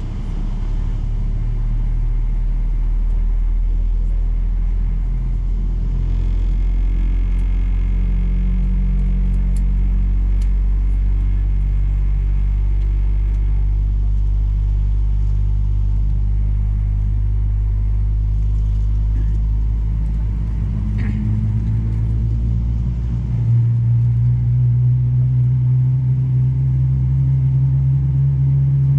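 Boeing 777-300ER's GE90 turbofan engines being started, heard from inside the cabin: a steady low drone of several tones that steps up and grows louder about two-thirds of the way through as an engine spools up.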